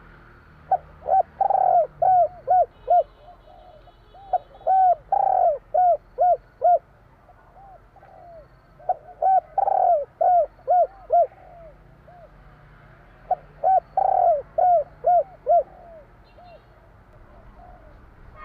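Spotted dove (tekukur) cooing its "kuk 3" song: four phrases of short, rounded coos, each phrase about two seconds long, repeated every four to five seconds. A few faint, higher chirps sound between the phrases.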